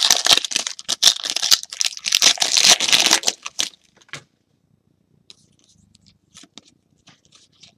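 A trading-card pack's foil wrapper being torn open and crinkled for about three and a half seconds, followed by a few faint clicks of cards being handled.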